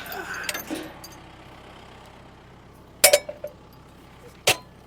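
Metal clinks and a sharp knock from a trailer hitch as the hitch pin is pulled: a ringing clink about three seconds in and a second hard knock near the end, over a steady idling truck engine.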